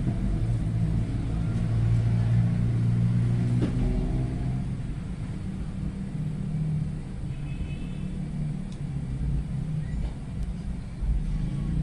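A steady low machine hum with a slightly wavering pitch.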